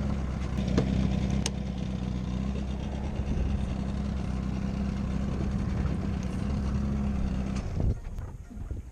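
An engine running steadily at idle, then switched off near the end.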